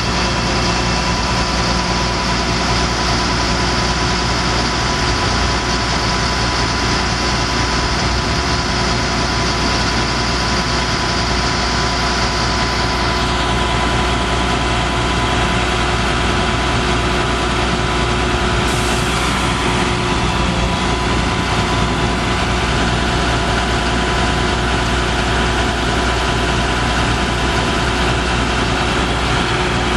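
Caterpillar C7 inline-six diesel engine of a Chevrolet C7500 bucket truck idling steadily. A high hiss over the engine fades out about thirteen seconds in.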